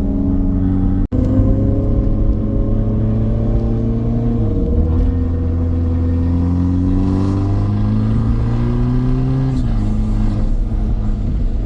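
Car engine under hard acceleration, its pitch climbing steadily, dropping at a gear change about four and a half seconds in, then climbing again until it drops once more near the end. The sound cuts out for an instant about a second in.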